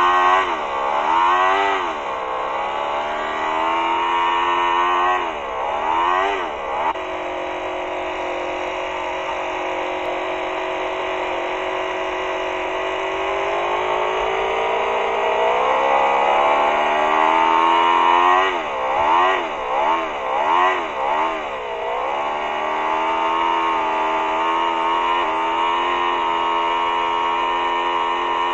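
Toyan FS-L200A twin-cylinder four-stroke model engine running and being blipped on the throttle. There are two quick revs about a second in and two more about five seconds in, then a fast run of about five revs around two-thirds through. Between them the engine runs steadily, climbing slowly in speed once it is in gear.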